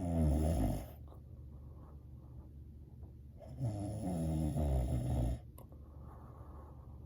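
A sleeping person snoring: a loud snore at the start lasting about a second, and another about three and a half seconds later lasting nearly two seconds, with a fainter breath near the end.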